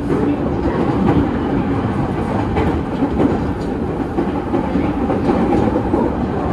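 An electric local train on the JR Takasaki Line running at speed, heard from inside the carriage: a steady rumble of wheels on rails.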